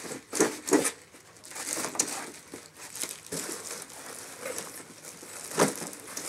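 Cardboard box and plastic packing of a battery backup being handled during unboxing: rustling and crinkling of plastic bags and cardboard, with louder scraping rustles about half a second in and again near the end.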